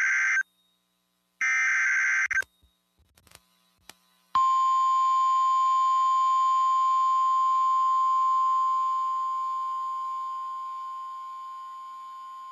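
NOAA Weather Radio alert start: the tail of one EAS/SAME digital header burst and then a third burst about a second long, both buzzy warbling data tones, followed by a few faint clicks. Then comes the 1050 Hz weather radio warning alarm tone, one steady high tone held about nine seconds that grows fainter in its second half and cuts off. It signals that a warning message follows.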